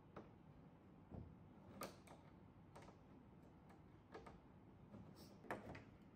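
Quiet, scattered clicks and taps of hard plastic as a small plastic peg is pressed and worked into a hole in a screwless plastic storage organizer's side panel, about half a dozen at uneven intervals.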